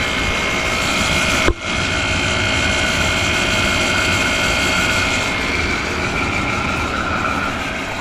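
Hampton Bay HBT120A 12,000 BTU window air conditioner running steadily: its Sanyo rotary compressor and its General Electric fan motor, whose bearings are worn, give an even rush with steady high whining tones. One sharp click about a second and a half in.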